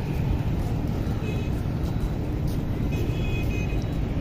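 Steady city street traffic: a low, even rumble of vehicles on surrounding roads, with faint short high-pitched tones about one and three seconds in.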